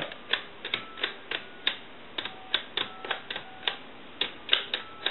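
Push-button keypad of a Western Electric Sculptura donut telephone being pressed key after key in a quick, uneven series of plastic clicks, each press sounding a brief, faint touch-tone (DTMF) dual tone as the digits are dialed.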